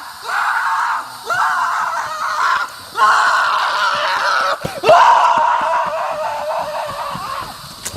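A person screaming in fright: several long, loud screams with short breaths between them, the last one tailing off near the end.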